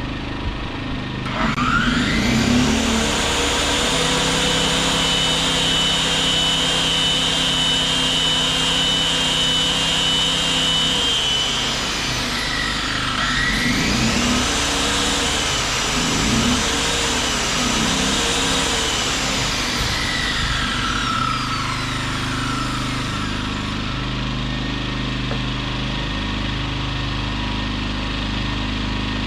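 Champion inverter generators running on freshly changed oil. Their engine pitch climbs about two seconds in, holds steady, then falls and rises several times before settling near the end. Their owner thinks they now run quieter and smoother.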